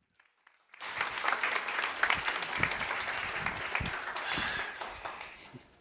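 A small audience applauding, starting about a second in and dying away near the end.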